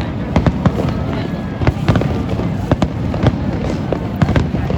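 Fireworks display: shells bursting in quick, irregular succession, sharp cracks and bangs over a continuous low rumble.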